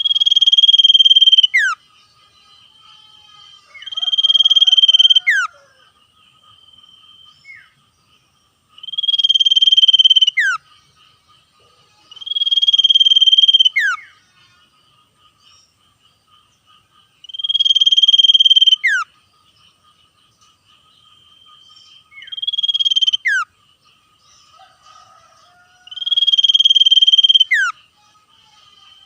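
Common iora giving its rapid trilling 'ngetir' call seven times, each trill about a second and a half long and ending in a sharp falling whistle. A faint steady high tone continues between the calls.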